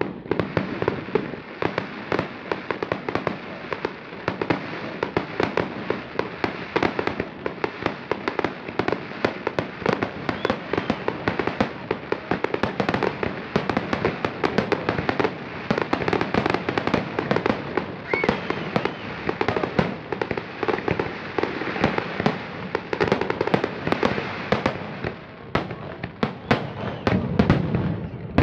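Aerial fireworks display: a dense, unbroken crackle of many small pops from bursting shells, with louder bangs every so often.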